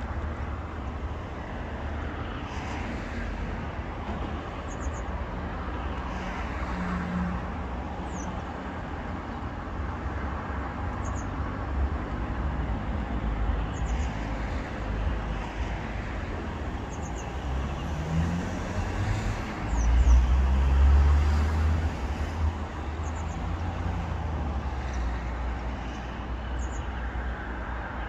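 Riverside street ambience: steady low traffic rumble from the road, with a bird's short high chirps every few seconds. A louder low rumble swells about two-thirds of the way through and then settles.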